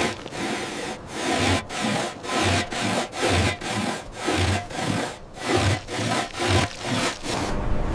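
Rhythmic back-and-forth scraping strokes, sawing-like, about two and a half a second, keeping an even pace.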